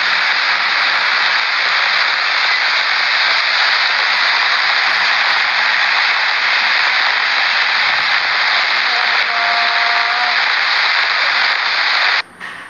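Loud, steady rushing hiss without pauses that cuts off abruptly just before the end.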